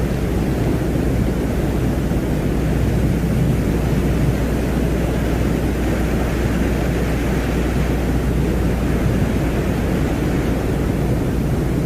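Deep, steady rushing noise with no clear tone, a synthetic space-ambient drone presented as the sound of the planet Venus; a fainter hiss above it swells slightly about halfway through.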